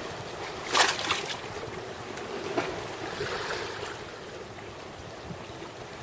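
Sea waves washing and wind buffeting the microphone, a steady rushing noise. A loud sudden burst of noise comes about a second in, and a smaller one at about two and a half seconds.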